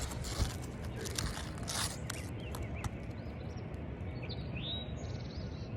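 A flat scraper blade scraping and cracking under asphalt roof shingles, breaking their seal in a few quick strokes during the first two seconds. Birds chirp in the background over a steady low rumble.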